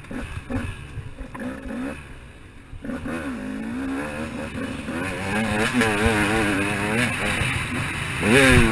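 KTM 200 XC-W two-stroke single-cylinder dirt bike engine heard on board while riding, its revs rising and falling with the throttle. It drops back off throttle about two seconds in, picks up again about three seconds in, and revs up louder near the end.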